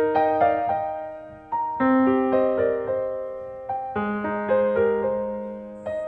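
Slow background piano music: notes and chords are struck every second or so and left to ring and fade.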